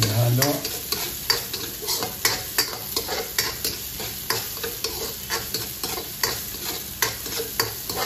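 Metal spatula scraping and clicking against a wok, about two to three strokes a second, while diced hotdog, carrots, onion and garlic fry in oil with a steady sizzle underneath.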